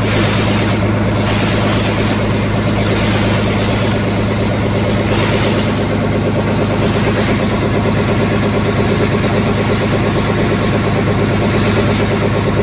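Boat engine running steadily at constant speed, an even low drone with no change in pitch.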